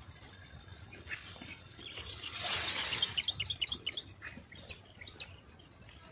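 Small birds chirping: a quick run of short high chirps about three seconds in, then a few arching high notes, over a faint outdoor background with a brief swell of noise just before the chirps.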